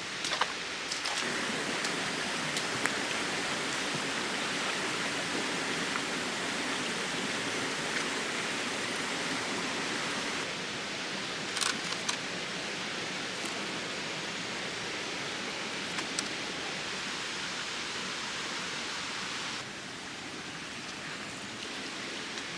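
Steady rush of flowing stream water, stepping in level a few times, with a handful of sharp clicks and knocks over it.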